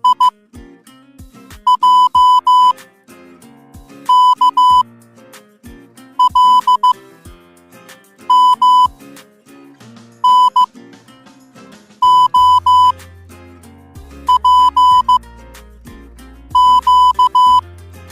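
Morse code sound effect: a high, steady electronic beep keyed in clusters of short dits and dahs, a cluster about every two seconds, over background music. A deep bass line joins the music about twelve seconds in.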